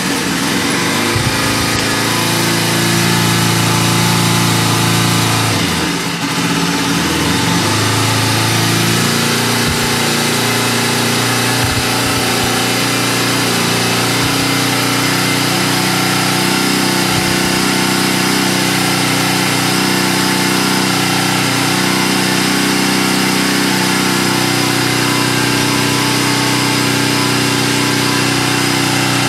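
Bajaj Pulsar NS200's single-cylinder engine idling. Its pitch wavers during the first several seconds, then it settles into a steady idle.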